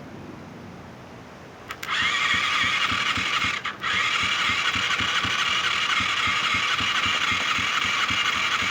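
A quad's electric starter cranking the engine with a whirring, rhythmic chug, starting about two seconds in, breaking off briefly, then cranking on without the engine firing. The failure to catch is taken as a sign of a carburettor fault.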